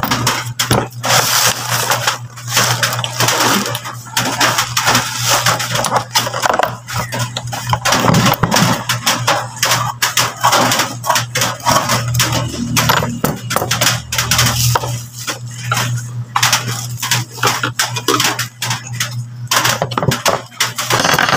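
Dense, irregular crinkling and crackling of plastic sheeting and bubble wrap while a cardboard box is handled and cut open with scissors, over a steady low hum.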